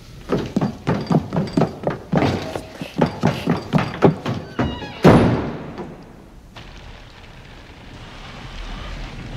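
A quick run of heavy thumps, about three a second, then one loud slam of a wooden door that rings out.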